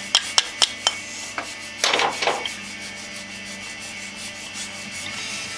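Regular light taps, about four a second, stop within the first second; about two seconds in comes a short scraping rub, over a faint steady hum.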